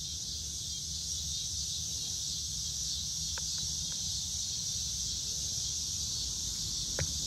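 Steady high-pitched chorus of insects, with a low rumble underneath and a few faint clicks.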